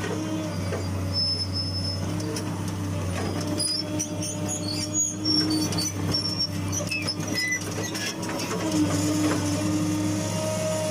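Hitachi UH045-7 excavator's diesel engine running steadily while it works. A whine comes and goes over the engine, with scattered short high squeaks.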